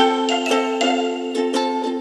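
Light instrumental background music: a bright melody of short notes, a few to the second.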